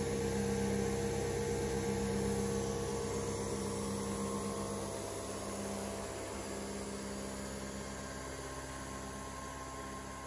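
Coffee machine's pump humming steadily while it dispenses coffee into a mug, the hum easing a little about halfway through.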